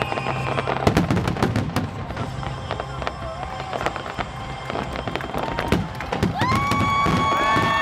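Aerial fireworks shells bursting in quick succession: many sharp bangs and crackles, one on top of another. About six seconds in, a long held high tone rises in and carries on over the bangs.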